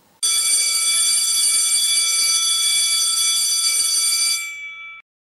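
A steady, bright electronic tone made of several held pitches that starts suddenly, holds unchanged for about four seconds, then fades and stops.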